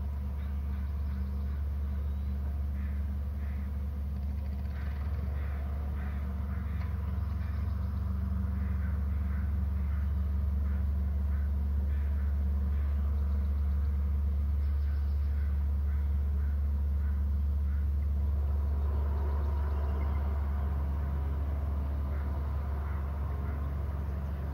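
Steady low hum or rumble, even in level throughout, with faint short high notes repeated several times a second over it during the first half.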